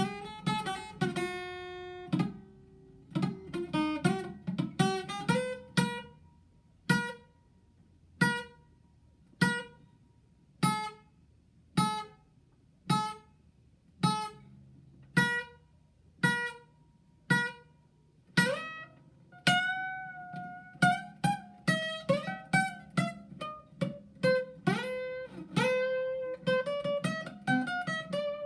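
Acoustic guitar played solo, notes plucked and left to ring. Busy picking at first gives way to single notes about a second apart, then near the end to quicker picking with some notes sliding in pitch.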